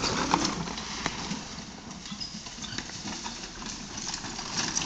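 Hoofbeats of a pair of carriage horses and the carriage's wheels on a dirt track. Close at the start, fainter in the middle as the carriage moves off, and louder again near the end as it comes back round.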